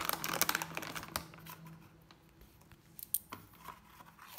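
Plastic kitchen containers and lids being handled on a counter: a quick run of clicks and crinkling in the first second or so, then a few scattered clicks about three seconds in.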